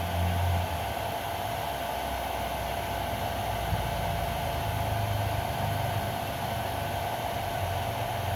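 Handheld hair dryer blowing steadily, with a constant whine over its rushing air, heating a pistol grip wrap to set the adhesive.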